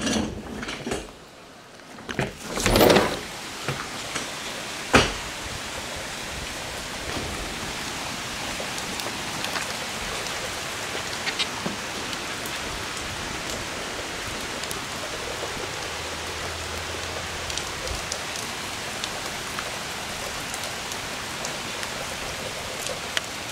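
Heavy thunderstorm rain pouring down steadily with an even hiss. A few loud knocks and clatters come in the first few seconds, and a single sharp thump about five seconds in.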